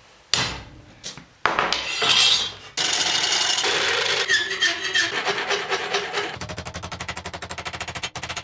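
Hand-tool work on metal in a workshop: a few sharp knocks, then a sustained rasping, scraping noise, giving way about six seconds in to a rapid, even run of taps.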